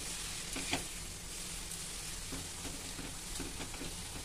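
Metal spatula stirring and scraping a thick, hot jaggery-and-spice mixture around a steel kadhai, a few scraping strokes over a steady hiss from the hot pan.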